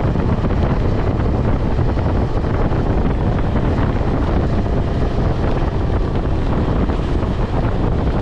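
Steady wind rush buffeting the microphone on a KTM 250 Adventure motorcycle riding at highway speed, with the bike running underneath.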